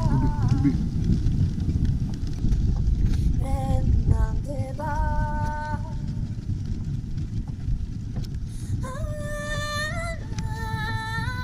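Reindeer-drawn wooden sled running over a packed snow track: a steady low rumble from the runners. Background music with a woman's singing voice holding long notes comes in about three and a half seconds in and again near the end.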